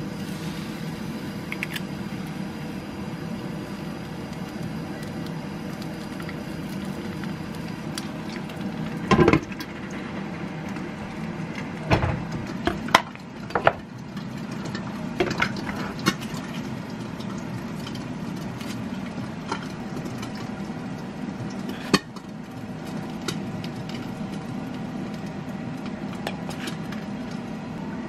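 An egg frying in an oiled pan over a steady background hum. Then come a string of sharp clinks and knocks as a ceramic bowl and its plastic lid are handled. The loudest knock is about nine seconds in, with more around twelve to fourteen seconds and one near twenty-two seconds.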